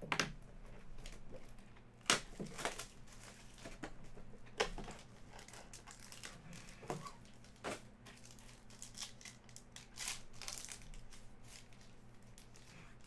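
Cardboard trading-card box being opened by hand, then a foil card pack crinkled and torn open, in irregular sharp crackles and rips.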